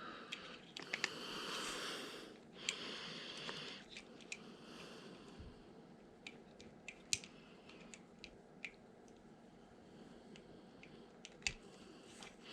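Faint, scattered small clicks and soft rustling from handling small plastic parts and wires, as a servo lead is plugged into a 1/24-scale RC crawler's receiver; a few brief hissy rustles in the first few seconds.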